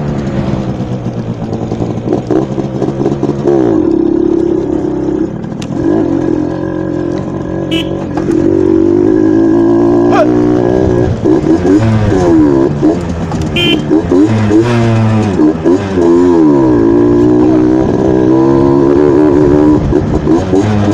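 Suzuki AX100 two-stroke single-cylinder motorcycle engine running with its air filter cover removed. It runs fairly steadily at first, then from about halfway through it is revved up and let fall back again and again.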